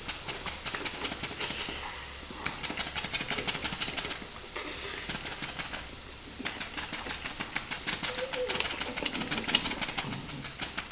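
Small seasoning shaker shaken hard, its grains rattling fast at about eight shakes a second in several bursts with short breaks.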